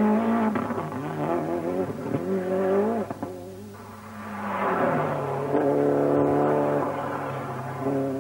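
Toyota Celica GT-Four rally car's turbocharged four-cylinder engine revving hard as the car drives past at speed. The pitch climbs and drops at each gear change. The sound dips briefly around three and a half seconds in, then builds again to a sustained high-revving run that falls away near the end.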